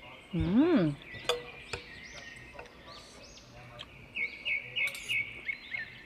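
Birds chirping and singing throughout, with a run of quick repeated notes from about four seconds in. Near the start a person gives one short hum that rises and falls in pitch, the loudest sound here, and a spoon clicks against the dish a couple of times.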